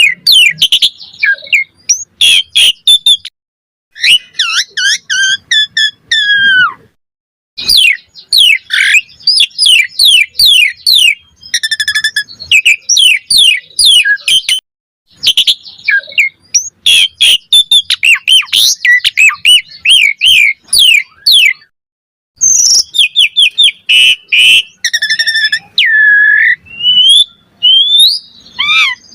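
Asian pied starling (jalak suren) singing loudly: phrases of rapid whistles, chattering notes and harsh squawks, several seconds long and separated by brief pauses.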